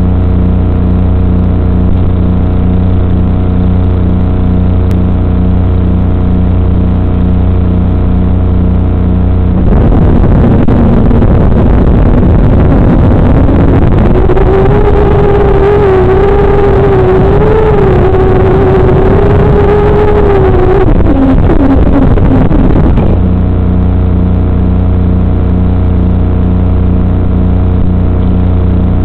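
FPV quadcopter's brushless motors spin up about ten seconds in with a whine that rises in pitch, wavers, then drops and cuts off about 23 seconds in, while the quad stays on the ground. Before and after, only a steady electrical hum is heard.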